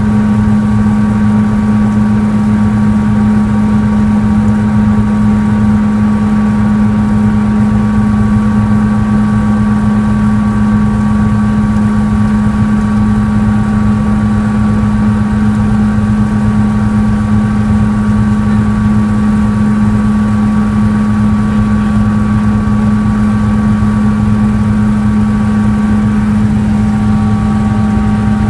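Cabin noise of a Sikorsky S-76 twin-turbine helicopter in forward flight, heard inside the cockpit: a loud, steady drone with a strong low hum and higher turbine and gearbox whine tones over it. Near the end an extra steady mid-pitched tone joins in.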